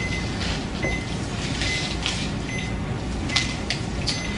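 Soft handling and rubbing sounds from gloved hands working at the lower leg with gauze and an ECG electrode, a few light clicks and scrapes over a steady background hiss.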